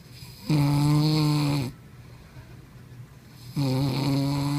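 A sleeping man snoring: two long snores about three seconds apart, each lasting just over a second and holding one steady low pitch.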